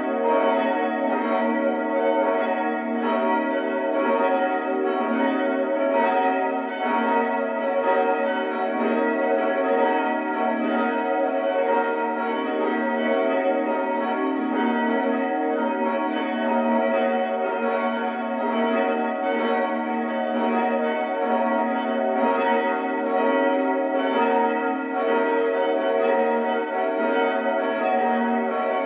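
Church bells in a tower ringing together: a continuous peal of overlapping strikes, each note ringing on under the next.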